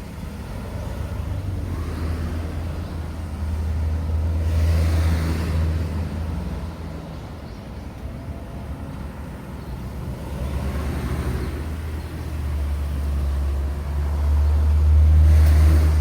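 Road traffic at an intersection: motor vehicles driving past close by, with a low engine drone and tyre noise. It swells twice, at about five seconds and most loudly near the end.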